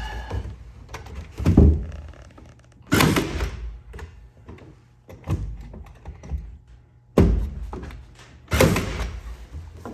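About five irregular thunks and knocks from work on a wooden cathouse, spaced a second or two apart; the loudest comes about a second and a half in.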